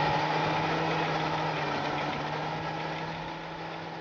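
John Deere 8260R tractor's diesel engine running steadily under load while pulling a disc harrow, with a constant low tone. The sound fades out gradually.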